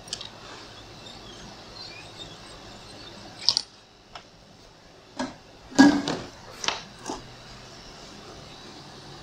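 Hot-air rework gun being put down and tools handled on the workbench: a few knocks and clatters, the loudest about six seconds in, over a steady faint hiss.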